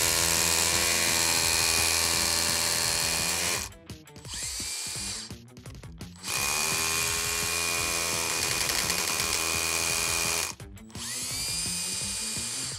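Makita HR183D 18V cordless hammer drill with its DX16 dust extraction unit, hammer-drilling a 3.4 mm hole sideways into concrete. Two spells of drilling of about four seconds each, each followed by a quieter stretch as the drill eases off.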